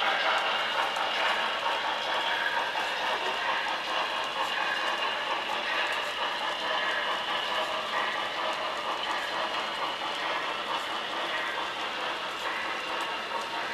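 Model train of coal hopper cars rolling along the layout track: a steady rolling rattle with the fine clicking of small wheels over the rails.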